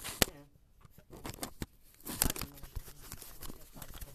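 Handling noise of a furnace filter and its housing parts being worked into place: a run of irregular clicks, knocks and scraping, sharpest about a quarter second in and again about two seconds in.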